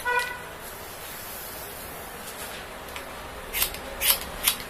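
Hairdressing scissors snipping through hair, three sharp snips close together near the end. A short pitched toot sounds right at the start.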